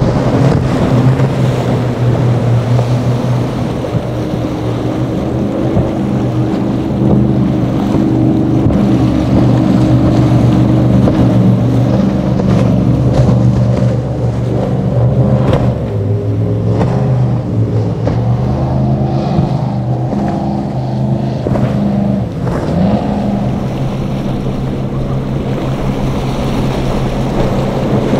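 High-powered multi-engine boats running at speed in turn, led by a center console on triple Mercury 350 outboards: a steady engine drone over the hiss of spray and hull on water, with wind on the microphone. The engine note shifts about halfway through, and a short rising note comes near the end.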